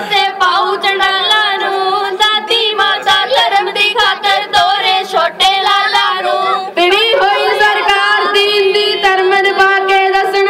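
Children singing a Punjabi Sikh devotional song together into microphones, the girls' voices leading on long held notes. A chimta's metal jingles clash in time underneath.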